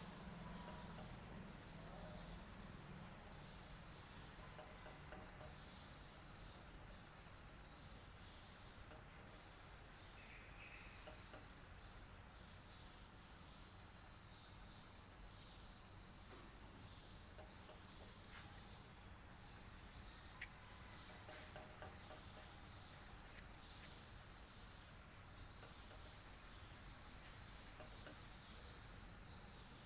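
Faint, steady, high-pitched trilling of crickets over a low hum, with a few faint clicks about two-thirds of the way through.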